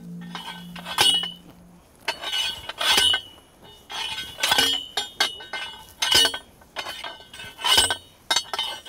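Manual post driver pounding a steel post into rocky ground: about six ringing metal clanks, roughly one every second and a half.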